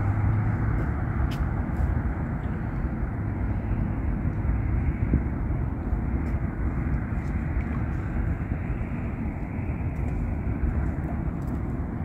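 River water rushing steadily: an even, deep rush of noise with no breaks or distinct events.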